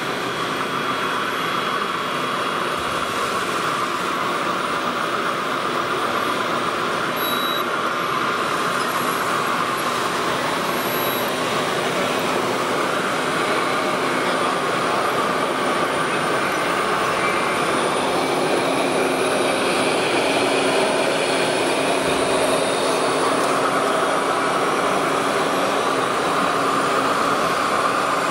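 Radio-controlled model trucks and construction machines running: a steady mechanical whir of small motors and gearing, with no single event standing out.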